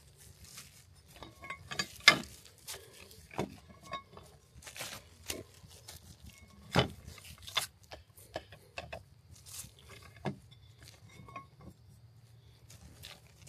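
Metal tortilla press being worked with a dough ball in a plastic bag: the bag crinkling and the press's plate and handle clacking shut, with the sharpest knocks about two seconds in and near seven seconds.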